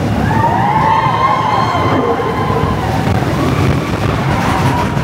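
Expedition Everest roller coaster train rumbling along its steel track with wind rushing past, while riders let out long, high, rising-and-falling screams in the first few seconds.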